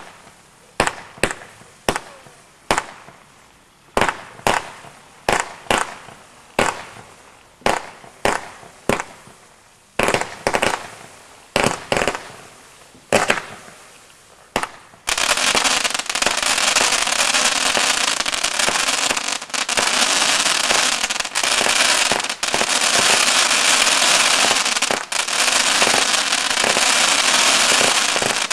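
Diamond Feuerwerk 'Sky Dance' firework cake firing. For the first half, shots launch about two a second, each a sharp report that trails off. About halfway through, the firing turns into a dense, unbroken crackling that lasts to the end.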